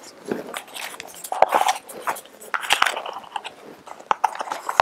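Paper packaging and a small jewellery box being handled during unboxing: irregular crinkling and rustling, with a few sharp clicks and taps of the box.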